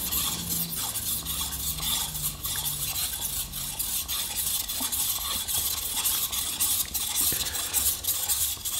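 Steel blade of a single-bevel Japanese kitchen knife scraping back and forth on a wet water whetstone in quick repeated strokes, grinding the bevel face.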